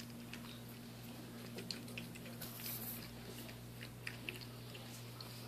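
Young Shih Tzu puppies moving about on a tile floor: faint scattered clicks and scuffs over a steady low hum, with a brief rustle about two and a half seconds in.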